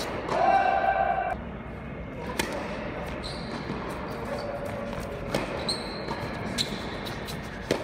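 Tennis rally: a few sharp ball strikes from rackets, irregularly spaced about a second or more apart, with thin high squeaks between them.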